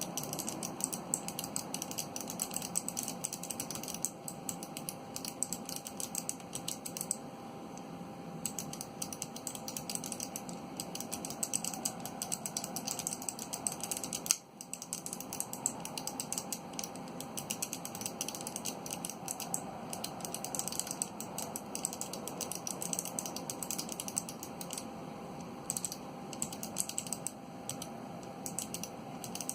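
Fast typing on a Gherkin 30% mechanical keyboard with Kailh Box Pale Blue clicky switches and no keycaps: a dense, continuous run of sharp clicks at about 51 words per minute, with a brief pause about halfway through.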